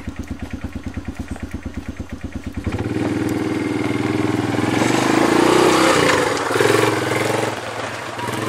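ATV engine idling with an even putter, then revving up and pulling away about three seconds in. The pitch climbs, dips briefly and climbs again, then eases off near the end.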